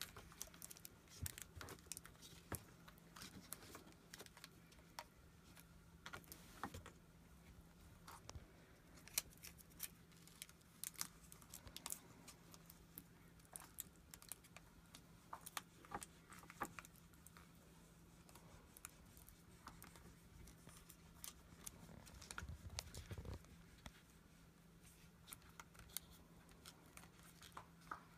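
Faint, scattered clicks and crinkles of flexible LED tape light and Scotch tape being handled, bent and pressed into place, over a faint steady low hum.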